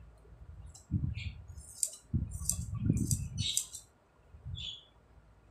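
Large tailoring scissors cutting through cloth: a run of crisp snips about half a second apart, with soft bumps as the fabric is handled.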